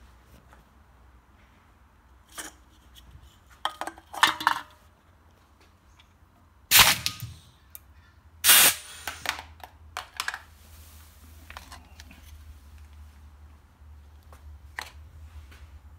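Pneumatic can crusher in use: a drink can clatters into its steel chute, then about seven seconds in the air cylinder fires with a sharp bang and rush of air, crushing the aluminium can. A second and a half later the valve lever is thrown back and the ram retracts with another blast of exhausting air, followed by light metallic clicks.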